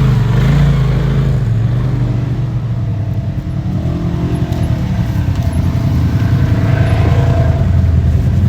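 Polaris RZR side-by-side's engine running steadily while under way off-road, easing off briefly about three seconds in and then picking back up.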